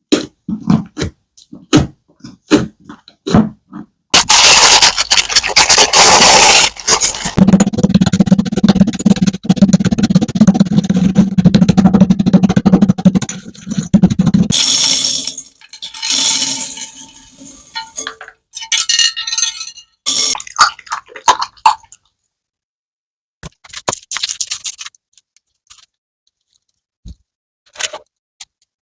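Slime being handled and squished: sharp sticky clicks and crackles, with a long stretch of dense, continuous crackling and squishing in the middle, then scattered crackling bursts and a few single clicks.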